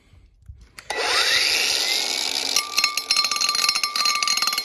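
Angle grinder spinning up with a rising whine about a second in, then its abrasive disc grinding on a seasoned cast iron pan from about two and a half seconds in, cutting through the seasoning to bare metal.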